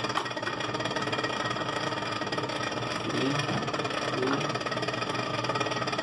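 Freezer fan of a Continental RFCT455 duplex frost-free refrigerator running with a steady mechanical whir, noisy as if it were catching on something. The noise comes with ice build-up caused by a control board that was not running the defrost.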